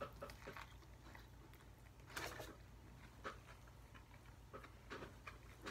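Quiet chewing of a bite of burger: faint, scattered mouth clicks and smacks, with a low steady hum underneath.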